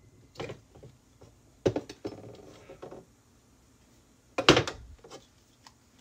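Pink ceramic pumpkin candle jar being handled: its ceramic lid is lifted off with light clinks and knocks, and the jar is set down with a louder knock about four and a half seconds in, followed by a few small taps.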